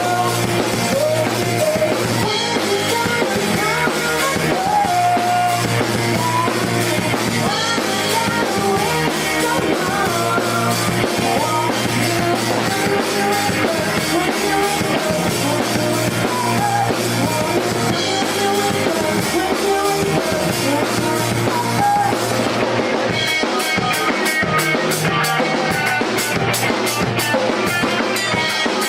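Pop-rock band playing live, with drum kit, bass and guitars, loud and steady. About 23 seconds in, the low end drops back and the drums come forward with an even run of sharp cymbal or hi-hat hits.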